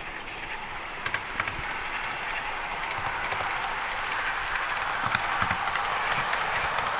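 Model train running on the track, its wheels and motor making a steady rattling hum that grows louder as it approaches and passes close by, with a few sharp clicks just after a second in.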